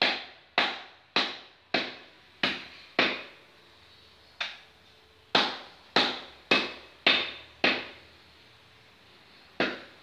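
Heavy cleaver chopping through a goat's rack of ribs into a wooden stump chopping block: about a dozen sharp chops in quick runs of roughly two a second, each with a short ringing tail, pausing twice.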